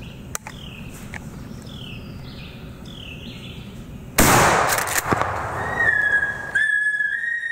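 Birds calling in short falling notes, then a single loud shotgun blast about four seconds in that rings on through the woods. A high, steady whistling tone follows near the end.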